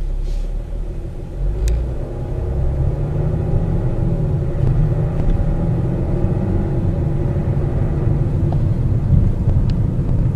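Cabin sound of a BMW X5 xDrive30d's 3.0-litre straight-six turbodiesel pulling at about 1,000 rpm in Drive, with a steady low rumble of the moving vehicle over rough ground and a few light clicks.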